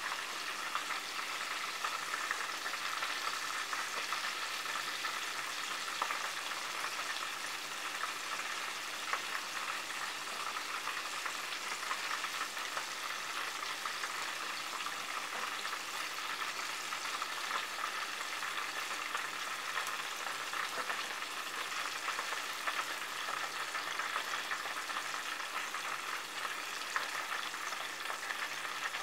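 Tempura-battered chicken deep-frying in vegetable oil: a steady crackling sizzle with many small scattered pops.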